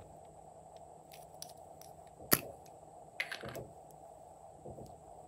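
Hard plastic lipstick tubes clicking and tapping as their caps are pulled off and handled: one sharp click a little over two seconds in, then a short cluster of clicks about a second later.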